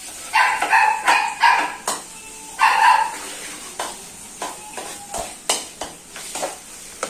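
A dog barking: four quick barks in the first two seconds and a longer one about three seconds in. After that, a metal spatula clicks and scrapes against a steel wok as chopped onion is stirred.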